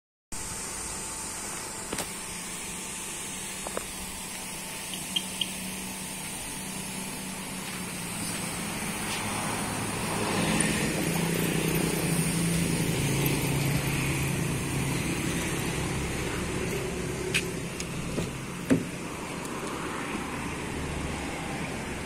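Vehicle engine noise: a steady low hum that swells louder for several seconds midway, its pitch shifting as a vehicle goes by, with a few sharp clicks and taps.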